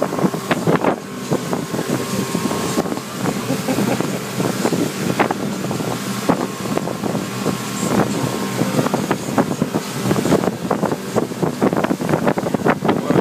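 A motorboat under way at speed: its engine runs with a steady hum under heavy wind buffeting on the microphone and the rush of water past the hull.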